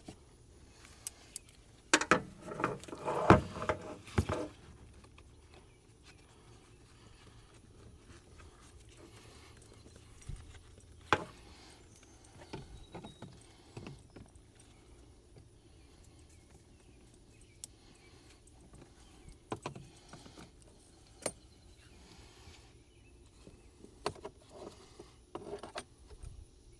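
Metal hand tools clinking and rattling while the negative battery cable is taken off: a burst of clatter about two seconds in, then scattered single clicks and knocks.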